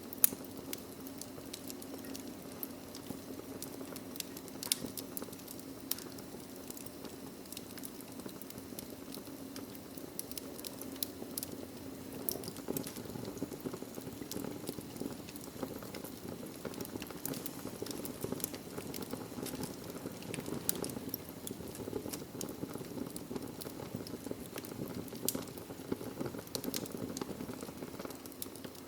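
Wood fire in a fireplace: burning logs crackling and popping steadily, with a sharp snap just after the start, over a low steady rush of flame.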